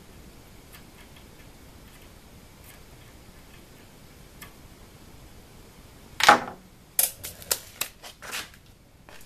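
Faint ticks of a hand tap being turned to thread a drilled hole in a metal plate. About six seconds in comes a loud clatter, followed over the next two seconds by several sharp clicks and knocks of tools and parts being handled.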